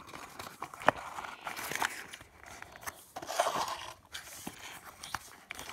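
Fingers closing up a cardboard kit model boxcar: light scraping and rustling of card against card, with a few sharp clicks, the clearest about a second in.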